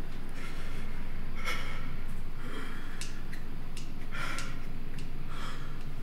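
A person breathing heavily in short, sharp breaths, about one a second, over a steady low hum.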